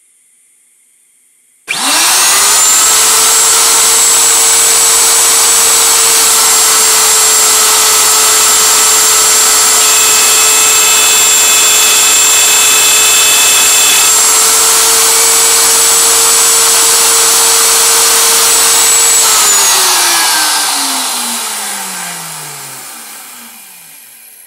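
Router spindle on a CNC Shark Pro Plus HD switching on and spinning up to a high, steady whine while it cuts keyhole slots in wood. Near the end it is switched off and winds down, its pitch falling as it fades.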